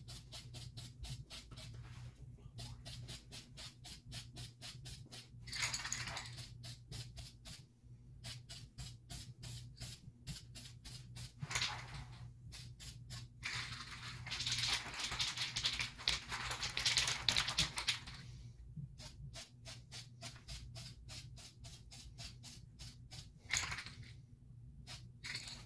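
Aerosol spray-paint can being shaken, its mixing ball rattling in quick even clicks about seven a second, broken by hissing bursts of spray; the longest burst lasts about four seconds midway through. A steady low hum runs underneath.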